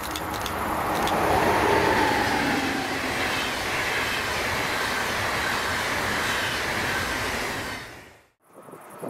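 A train passing at speed close by: a loud rushing of wheels on rail that swells about a second in, with a faint tone falling in pitch as it goes by, then runs on steadily before cutting off abruptly near the end.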